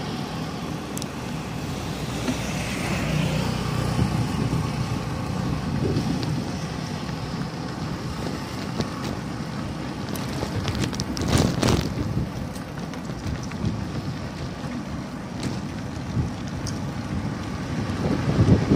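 Steady engine and road noise from a slow-moving motor vehicle, with wind buffeting the microphone and a brief louder rush about eleven and a half seconds in.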